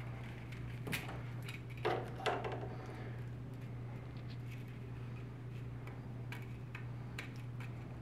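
Scattered light clicks and taps of small plastic parts and a ribbon cable being handled, a few together about a second or two in and more near the end, over a steady low hum.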